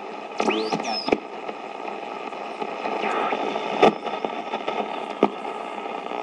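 Zenith multiband portable radio tuned between stations: static hiss with faint steady tones. Whistles sweep upward in the first second as the tuning passes a signal, and two sharp clicks from the controls come about four and five seconds in.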